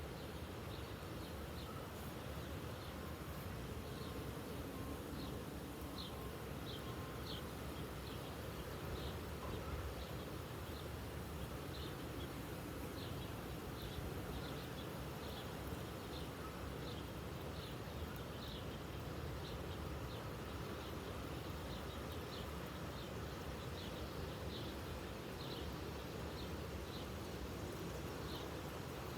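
Outdoor ambience: a steady rumbling noise with short, high chirps repeating irregularly about once a second, typical of insects or birds calling under a darkening sky.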